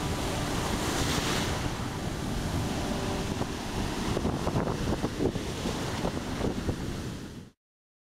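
Surf breaking and washing up a beach, with wind buffeting the microphone; sharper splashes come through in the second half before the sound cuts off abruptly near the end.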